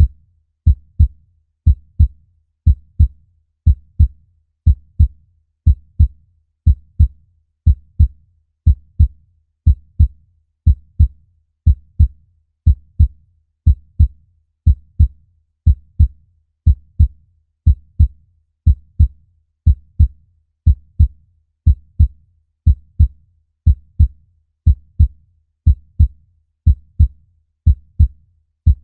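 Human heartbeat: a steady double thump (lub-dub) about once a second, low and even.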